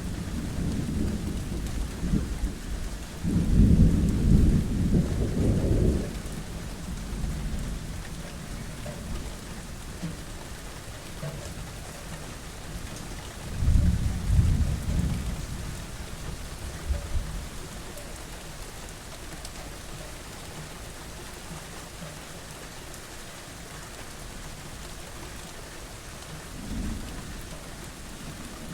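Steady rain with rolling thunder: a loud low rumble swells a few seconds in and lasts about three seconds, a second rumble comes about halfway through, and a faint one near the end.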